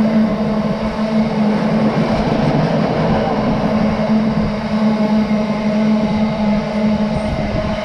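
Freight train of loaded cement tank wagons running through at speed: a steady rumble of wheels on rail with a continuous low hum.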